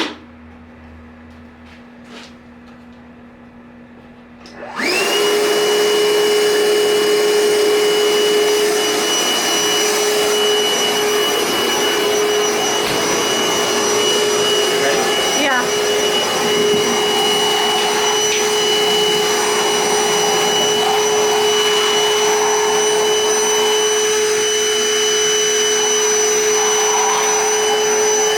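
Milwaukee M18 cordless wet/dry vacuum (0880-20) switched on about five seconds in: the motor spins up quickly, then runs steadily with a whine over the rush of suction.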